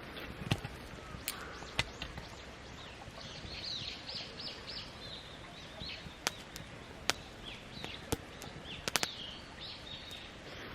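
A songbird singing a run of quick, high, repeated notes from about three seconds in, over a steady outdoor background hiss. Scattered sharp clicks and snaps are the loudest sounds, including a quick cluster near the end.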